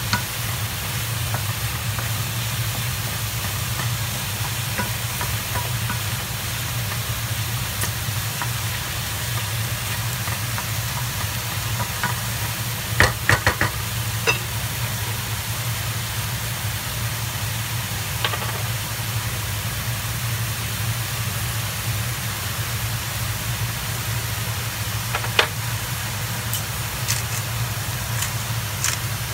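Sliced mushrooms and onions sizzling as they sauté in a stainless steel frying pan, over a steady low hum. A quick cluster of sharp knocks comes about 13 seconds in, with single clicks later and light ticking near the end.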